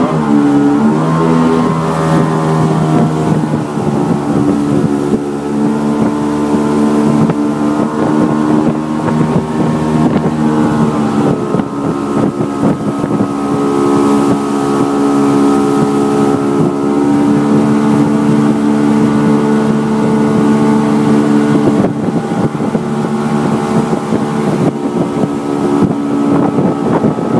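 A motorboat's engine runs steadily at speed, with wind noise on the microphone. The engine's pitch dips and recovers briefly about a second in.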